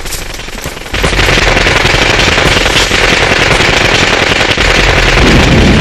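Sustained automatic gunfire, a dense rapid rattle of shots that gets louder about a second in.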